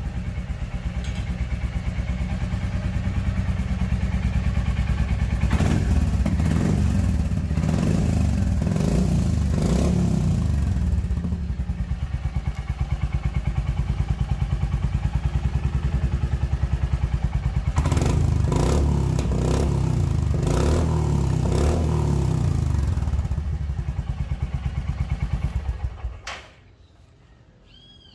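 Royal Enfield Classic 350 single-cylinder engine idling through the stock catalytic converter and a chamfered Customer exhaust tip, blipped up on the throttle twice, then shut off near the end. The exhaust note is deep and a little subdued.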